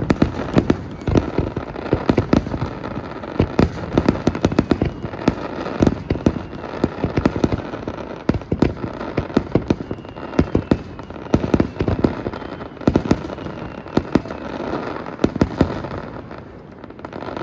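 Fireworks display: a dense, continuous barrage of bursts and crackling, many reports a second.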